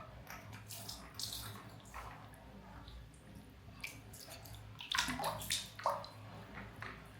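Water splashing and trickling in short, irregular splashes, a little louder about five seconds in.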